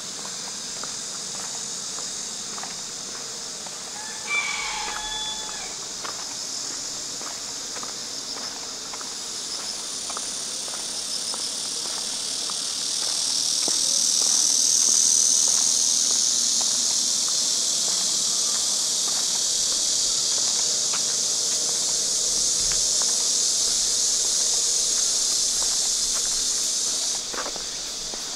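Steady high-pitched insect drone that swells louder in the middle and cuts off abruptly near the end, with footsteps ticking underneath and a brief animal call about four seconds in.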